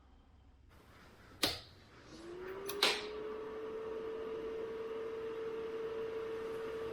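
A click, then a small electric motor spinning up over about a second and running on at a steady pitch.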